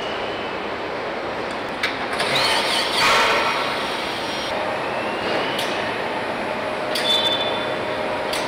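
Car assembly hall ambience: a steady factory hum and hiss, with a short loud burst of air hissing about two seconds in and a few sharp metallic clicks of tools and parts.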